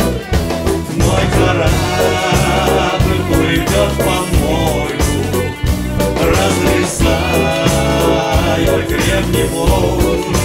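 Instrumental break of a song: piano played with both hands over a steady, rhythmic bass line, with no sung words.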